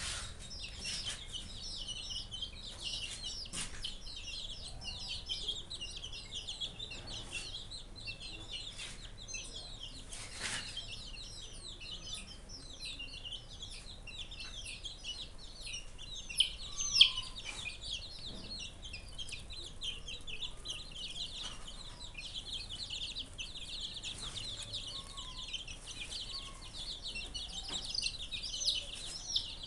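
A group of young chicks peeping constantly and overlapping as they peck at feed, in many short high chirps, with one sharp, louder cheep a little past halfway.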